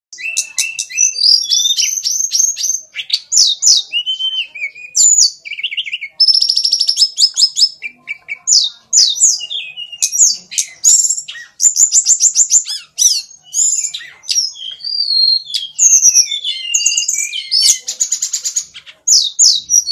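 Bird song: a loud, fast, varied run of chirps, rapid trills and sweeping whistles that goes on almost without a break.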